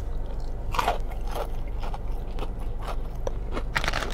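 Close-up eating sounds: crisp battered fried fish being bitten and chewed, a series of crunches at uneven intervals with a cluster near the end.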